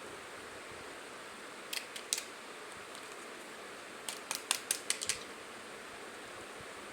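Light, sharp clicks of small hard plastic toy pieces being handled: a few about two seconds in, then a quick run of about eight clicks near the middle, over a steady low hiss.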